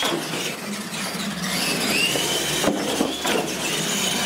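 Two radio-controlled monster trucks racing on a hard floor: their electric motors and gearing whine high, the pitch rising and falling as they speed up and slow, with tyre scrub and a few light knocks.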